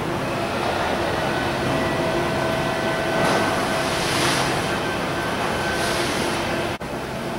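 Steady indoor background noise: a low, even hum with a few faint held tones and some brighter hiss, dropping out briefly near the end.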